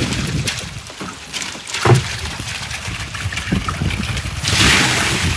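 Boat engine running with a steady low rumble, a sharp knock about two seconds in, and a loud hissing rush near the end.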